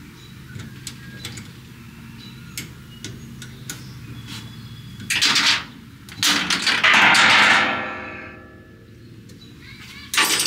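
Hand-tool handling on a CO2 laser cutter's gantry as the drive-shaft coupler set screws are tightened with a hex key: small metal clicks, then two loud scraping rushes about five and six seconds in, the second falling in pitch, and a sharp knock near the end.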